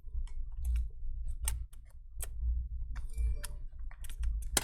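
Irregular light plastic clicks and taps from handling the laptop's opened power-button parts, with a sharper click near the end.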